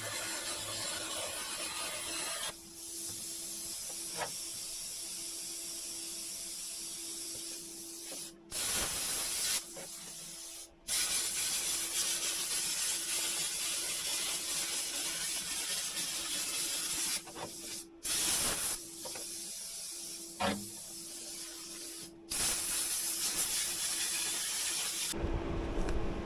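Metal-cutting torch hissing steadily as it cuts through the steel bed of a wrecker truck. The hiss breaks off abruptly and starts again several times.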